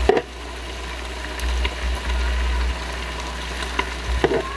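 Squid sizzling on an electric grill, with a few light clicks of metal tongs turning it, over a steady low hum.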